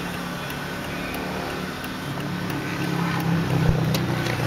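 Power window motor in a Mercedes-Benz S430 door running as the glass moves: a steady hum that grows louder about two seconds in, with a single knock shortly before the end.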